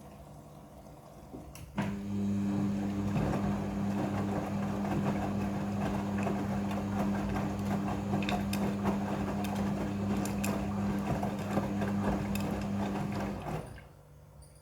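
Midea front-loading washing machine's drum motor starting about two seconds in and turning the drum for about twelve seconds, with a steady hum over the churning of the wet load, then stopping: one tumble spell of the wash cycle.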